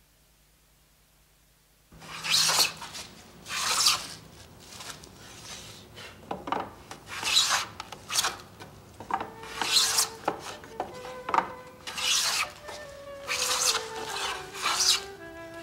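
Japanese router plane (sokotori-jakuri-ganna) cutting along the bottom of a groove in wood, a series of scraping strokes about one a second, beginning about two seconds in.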